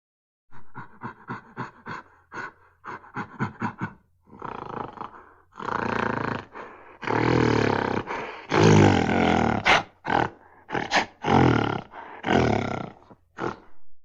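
A gorilla screaming: a quick run of short calls, then from about four seconds in a series of longer, louder screams.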